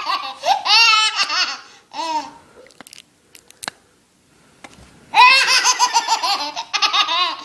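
A baby laughing hard, a run of quick, high-pitched belly laughs. The laughter stops for a few seconds in the middle, where only a few faint clicks are heard, and starts again loudly about five seconds in.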